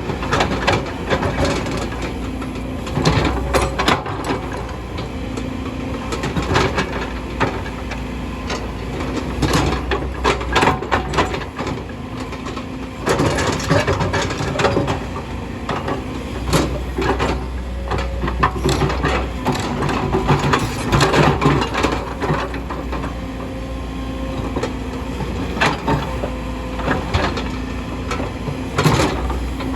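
Kobelco hydraulic excavator working: a steady diesel engine hum under irregular scraping, grinding and knocking as the bucket digs into rock and soil.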